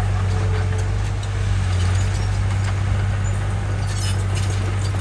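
Komatsu bulldozer's diesel engine running steadily under load with a deep, constant drone, with light metallic clinks and rattles on top.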